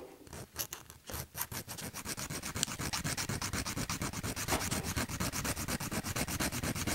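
A file scraping grooves into a steel screw by hand, so that the screw will cut its own threads like a tap. A few separate strokes at first, then rapid, even back-and-forth strokes from about two seconds in.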